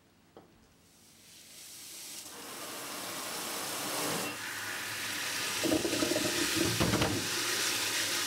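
Tap water running into a glass bowl of strawberries in a stainless-steel sink, fading in and growing louder. A hand sloshes the strawberries in the water, heaviest about two-thirds of the way through.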